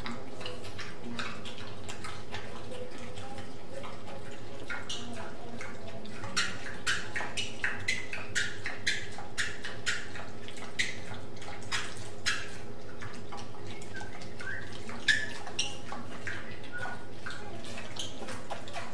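Short, irregular clicks and taps from pigs moving about and nosing on a tiled floor, coming thickly from about six seconds in for some ten seconds, over a steady low hum.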